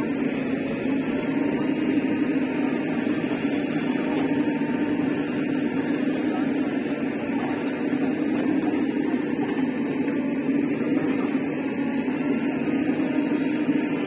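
Diesel engines running steadily: a Mahindra Yuvo tractor idling while a JCB 3DX backhoe loader works to load its trailer.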